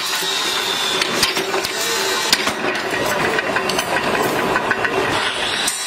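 Flywheel-driven mechanical power press running while steel scissor blanks are trimmed in its die: a steady machine noise with many sharp metallic clicks and knocks. The sound changes abruptly just before the end.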